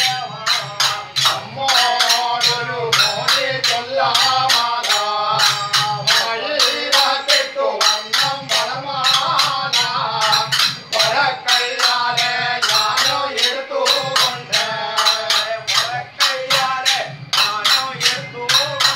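Male voices singing thottam pattu, a Kerala temple ritual song, over sharp rhythmic percussion strokes at about four a second.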